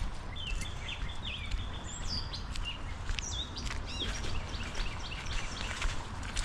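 Birds chirping, a string of short whistled calls that slide up and down in pitch, over a steady low rumble.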